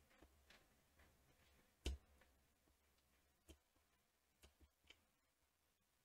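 Near silence with a handful of faint, scattered computer mouse clicks. The loudest comes about two seconds in, and a few smaller ones follow later.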